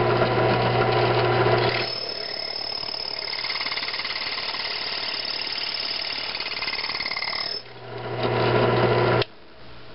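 Drill press running, its motor humming, then the bit squealing steadily for about five seconds as it bores through the cap on a steel pipe. The motor hums again and cuts off about nine seconds in.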